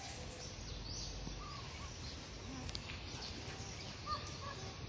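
Scattered short bird chirps over a steady outdoor background hiss.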